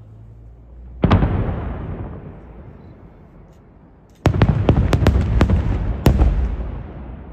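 Aerial firework shells bursting overhead. One loud bang about a second in echoes away over the next two seconds, then a rapid string of sharp cracks from about four seconds in fades into a rumbling echo.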